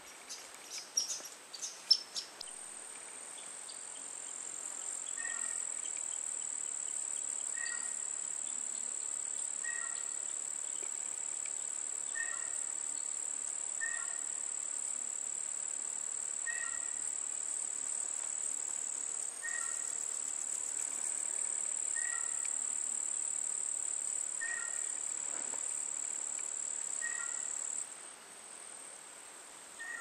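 Insects trilling in one steady, high, continuous tone that stops suddenly near the end. Over it a short chirp repeats about every two seconds, and a few sharp chirps come in the first two seconds.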